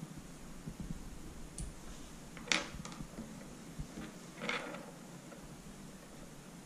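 Small plastic pump valves and their rubber seals handled by hand and set on a wooden table as the O-rings are stripped off a Dosatron D9's top valves. A sharp click comes about two and a half seconds in and a short scrape about two seconds later, with faint ticks between.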